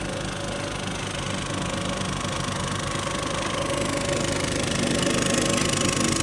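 Road roller's engine running steadily with an even low chugging, growing a little louder about four seconds in.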